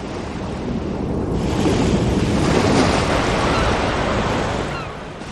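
Recorded ocean-surf sound effect, a steady wash of waves that swells to its loudest around the middle and then eases off, with a few short gull cries coming in near the end.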